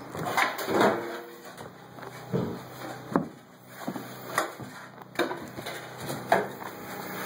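Shovels scraping and dirt and debris being dumped into a wheelbarrow, a run of irregular scrapes and knocks.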